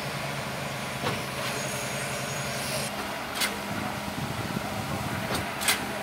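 Truck-mounted concrete boom pump and transit mixer trucks running steadily during a pour, with several short sharp knocks.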